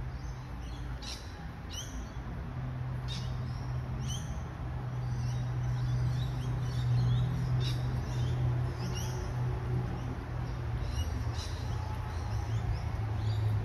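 Small birds chirping in short high calls, repeated every second or so, over a steady low hum that grows louder about three seconds in.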